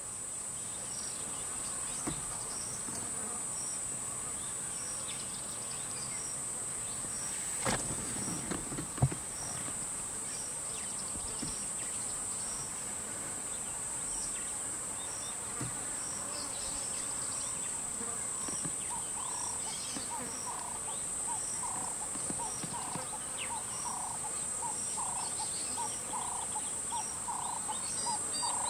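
Steady, high-pitched insect chorus drone. Over it runs a short high chirp that repeats a little faster than once a second. From about two-thirds of the way through comes a lower pulsing call about twice a second, and a few sharp knocks fall about a third of the way in.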